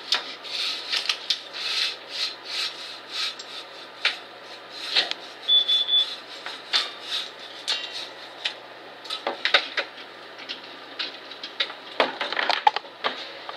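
Aerosol spray can of adhesive promoter being shaken, its mixing ball rattling in bouts of quick clicks with short pauses between, mixed with the knocks of handling.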